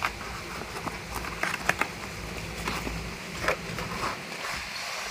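Cardboard packaging rustling and crackling as a solar panel is slid out of its box, with a few sharp clicks and snaps from the box and the panel's frame, the loudest a little under two seconds in and again about three and a half seconds in.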